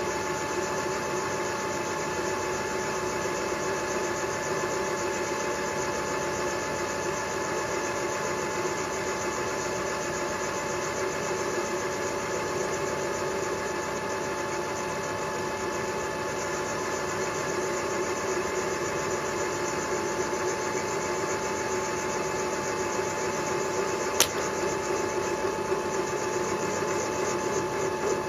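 Milling machine running steadily with a boring head taking the final cut in a valve-seat insert recess in a cast-iron A-series cylinder head. The steady hum carries several whining tones. There is one sharp click late on and a few light knocks near the end.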